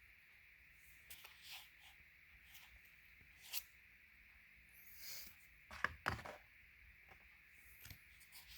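Faint rustles and a few light taps of tarot cards being handled and laid down, the loudest pair about six seconds in, over a low steady hiss.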